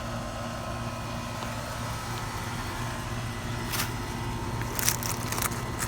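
Steady electrical and mechanical hum of a running central air conditioner outdoor unit. A few sharp clicks and rattles come about four and five seconds in, as the replacement run capacitor is handled and wired in.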